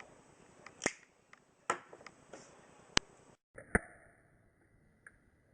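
Zippo lighter being handled in a flip trick: several sharp metallic clicks of the lid and case, roughly a second apart.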